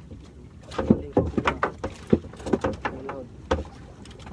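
A fishing net being hauled in by hand over the side of a small boat: a quick, irregular run of knocks.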